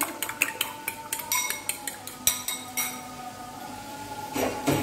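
A metal fork beating eggs in a ceramic bowl, clinking against the bowl about five times a second and stopping about three seconds in. A short, louder noise comes near the end.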